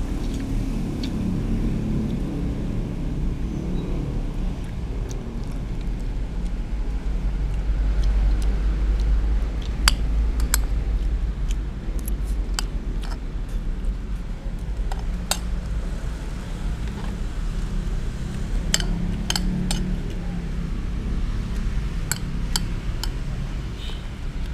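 A metal spoon clinking and scraping against plates while eating, a dozen or so sharp clicks, bunched about ten seconds in, at fifteen seconds and in the last few seconds, over a steady low rumble.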